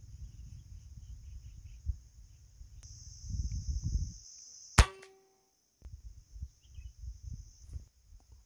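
A single air-rifle shot about halfway through: one sharp crack with a brief metallic ring, fired at a spotted dove. Before it there is low rumbling noise.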